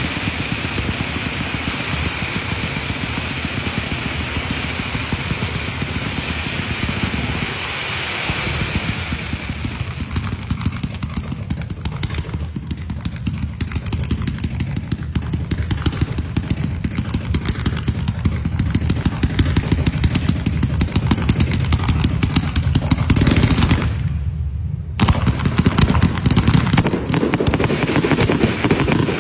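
Firecrackers going off in a rapid, continuous rattle of cracks, like a long string of crackers burning through. Near the end the cracking briefly dips for about a second, then picks up again.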